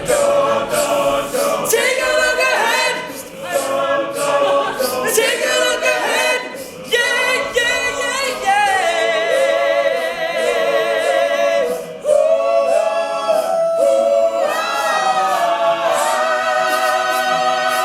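All-male a cappella vocal group singing with no instruments, the voices in close harmony, with a long held note with vibrato near the middle.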